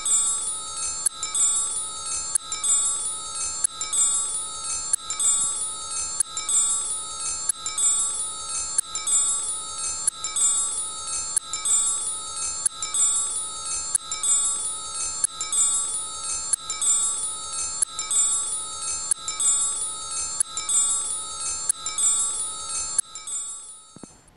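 High, tinkling chimes ringing in a steady, evenly repeating pattern, fading out near the end.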